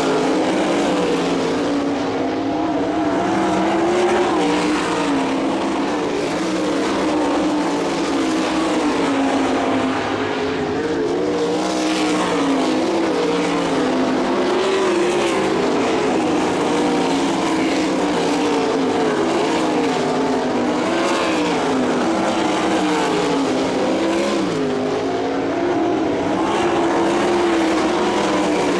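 A field of dirt-track sprint cars racing, several V8 engines running at high revs at once, their pitches wavering up and down as they go around the track.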